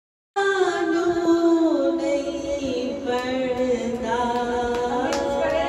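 A woman singing unaccompanied into a microphone, with long held notes that slide slowly downward in pitch. The singing cuts in abruptly a moment in.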